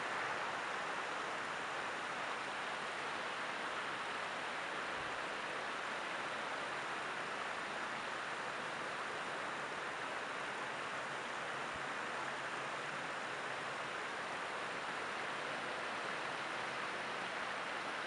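Creek water rushing steadily over a shallow rocky riffle, an even unbroken rush.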